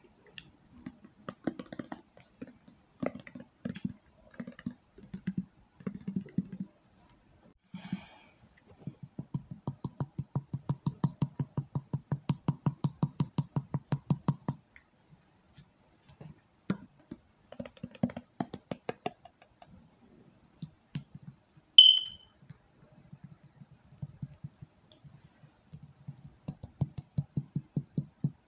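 Fingertip tapping on objects for ASMR: irregular clusters of light taps, then a fast, even run of about six or seven taps a second lasting several seconds. About two-thirds of the way through, one short, high ringing ping stands out.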